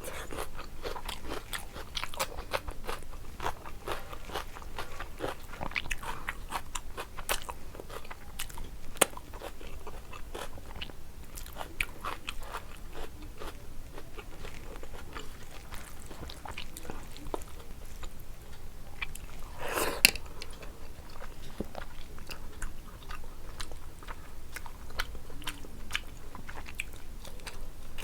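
Close-up chewing and crunching of food, many small crisp crunches and mouth sounds, with one louder bite about twenty seconds in.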